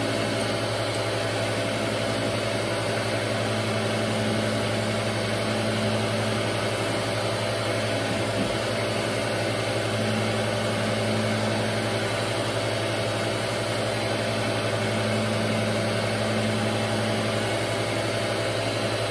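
Rockwell Delta toolmaker surface grinder running with its wheel on a balanced SOPKO hub, giving a steady, smooth hum as light passes are made across the work toward spark-out. A mid-pitched part of the hum swells and fades slowly every few seconds.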